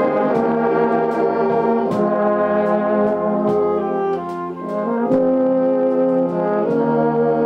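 Wind band playing sustained chords, trombones and other brass to the fore, with drum-kit cymbal strokes. The music thins briefly about four seconds in, then the full band comes back in.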